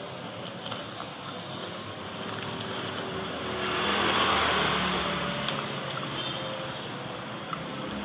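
A vehicle passing by, its noise swelling to a peak about halfway through and then fading, over a steady background hum.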